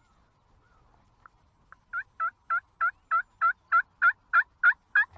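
Turkey yelps: a run of about a dozen evenly spaced two-part notes, about three a second, starting about two seconds in and growing louder.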